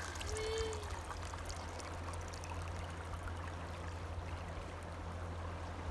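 Water pouring from a plastic bucket into a hollow in wet sand, a steady splashing trickle over the rush of a river close by.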